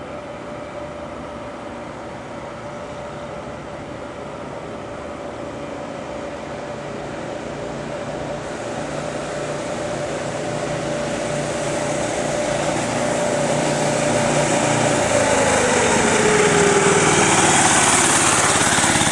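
Minibike's small engine running on a 50-50 alcohol-gasoline mix as it rides toward the listener, growing steadily louder. Near the end it comes up close and its pitch falls.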